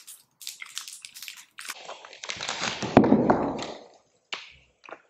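Candy wrapper crinkling as an Airheads taffy bar is peeled open and handled, with a louder rustle and a knock about three seconds in.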